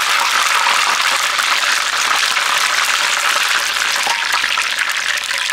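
Batter-coated eggplant slices deep-frying in a small frying pan of hot oil: a loud, steady sizzle and crackle.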